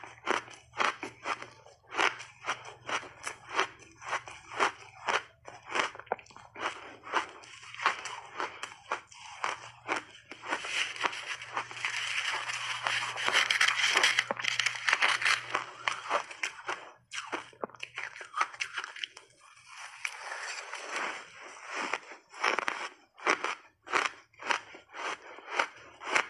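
Close-miked chewing of shaved ice: quick sharp crunches, about two or three a second, running into a denser, louder stretch of continuous crunching partway through. After a short lull, the separate crunches return near the end.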